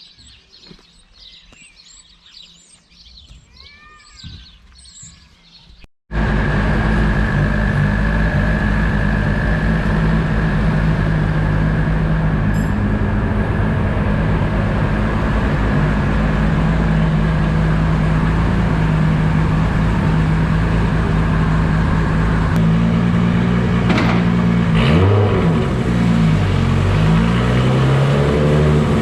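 Small birds chirping faintly, then, after an abrupt cut, a car engine running loudly at steady revs with a high steady whine over it; in the last few seconds the revs drop and climb back up.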